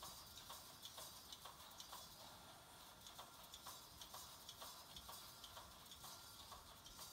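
Pneumatic wire mesh spot-welding machine cycling: faint, regular clacks about twice a second as its rows of air-driven electrodes close on the wires and weld.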